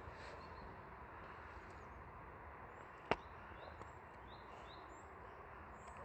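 A boxer dog biting into a raw apple: one sharp crunch about three seconds in, over steady faint outdoor background noise.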